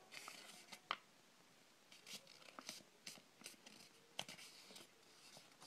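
Faint rustling and crinkling of a square sheet of paper being folded corner to corner and creased by hand, with scattered small ticks, the sharpest about a second in and about four seconds in.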